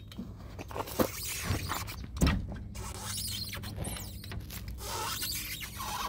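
Torque wrench and socket knocking and clinking on a trailer wheel's lug nuts as they are tightened, a few sharp knocks with the loudest about two seconds in.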